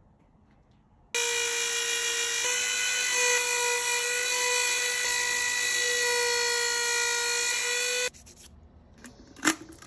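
Handheld rotary tool with a pointed carving burr running at high speed and engraving cedar: a steady high-pitched whine that starts about a second in and cuts off suddenly near the end. Two short sharp knocks follow.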